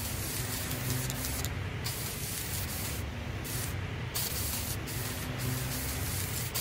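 Aerosol spray-paint can hissing in long bursts, broken by several short pauses, over a low steady hum.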